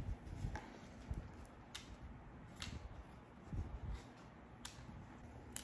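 Seeds being put into a small paper seed envelope: faint, irregular light ticks and paper rustles, a few clicks spread across several seconds.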